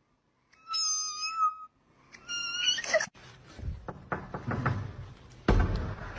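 A pet's high-pitched, drawn-out cries, twice, each just under a second long, the second rising at the end. They are followed by low rumbling and scattered knocks, with one loud thump near the end.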